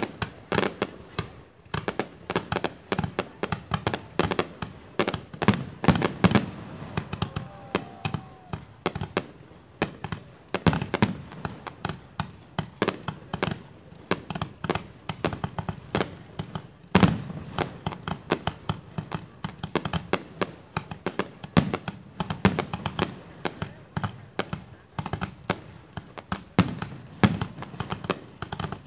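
Rocket fireworks bursting overhead in a rapid, unbroken string of bangs and crackles, several a second, with one especially loud bang a little over halfway through.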